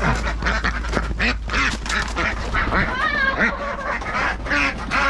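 Flock of domestic ducks and geese calling, many quacks and honks overlapping without pause.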